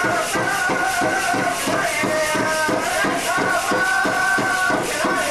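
Pow wow drum group playing: a big drum struck in a steady beat, about three to four beats a second, under several voices singing a high, held chant.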